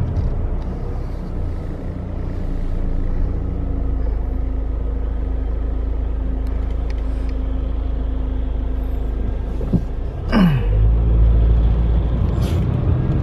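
Car cabin road and engine noise while driving: a steady low rumble with a faint steady hum. About ten seconds in, a brief sharp sound falls steeply in pitch, and the rumble then grows louder.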